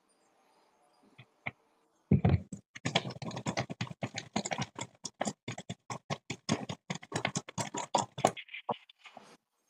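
Carrot pieces and broccoli florets rattling in a bowl being shaken by hand to coat them: a rapid clatter of small knocks that starts about two seconds in and stops near the end.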